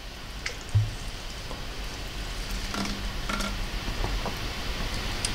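A steady, even hiss of outdoor background noise with a low rumble underneath and a few faint, short clicks.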